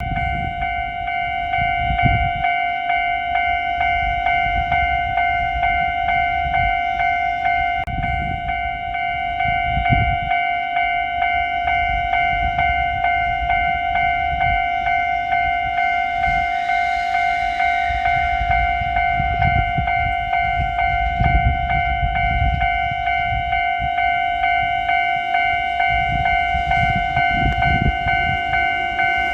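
Japanese level-crossing electronic warning bell ringing its repeating kan-kan alarm without a break, over a heavy low rumble that swells in the second half, typical of a commuter train rolling through the crossing.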